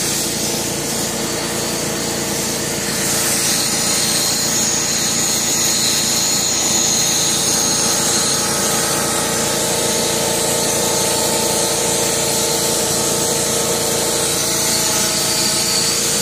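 Shop vac motor running steadily with a whine and suction hiss, drawing dirty water from a car's cloth seat up through a clear hand extractor nozzle. It grows a little louder and hissier about three seconds in.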